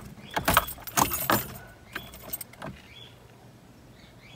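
Keys jangling and clicking at the ignition of a Mitsubishi Pajero TR4, loudest in the first second and a half, then only faint sounds. The ignition is switched on with the engine not yet started.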